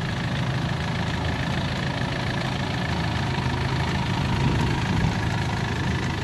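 Ruilong New World 88 combine harvester's engine running with a steady low drone and a faint steady whine over it.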